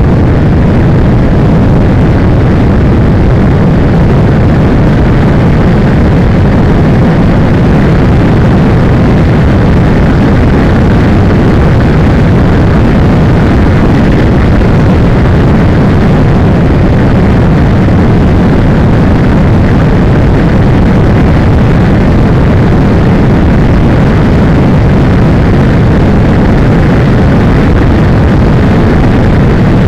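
Motorcycle riding along a gravel road, heard from an on-bike camera: a loud, steady rumble of wind on the microphone mixed with engine and tyre noise, with no change in pace.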